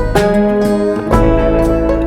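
Background music: acoustic guitar strumming chords over a bass line with a steady beat.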